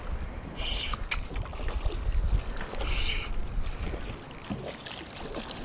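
Wind rumbling on the microphone, with short splashes of water as a hooked fish thrashes at the surface beside the landing net.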